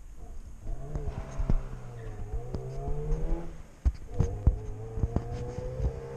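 Car engine accelerating through the gears: the pitch climbs steadily, drops at a gear change about two thirds of the way through, then climbs again. Scattered sharp knocks and clicks sound over it.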